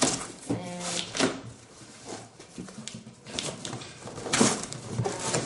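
Styrofoam packing blocks and a cardboard box being handled: scattered scrapes, rubs and knocks, the loudest about four seconds in. A short vocal sound comes about half a second in.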